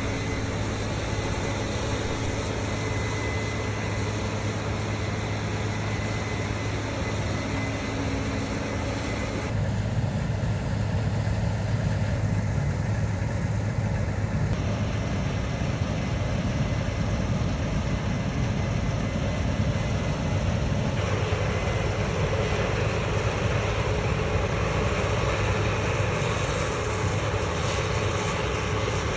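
Combine harvesters running under load while harvesting wheat: a steady diesel engine drone mixed with the whirr of the threshing machinery. The sound changes abruptly three times, as the shot switches between machines.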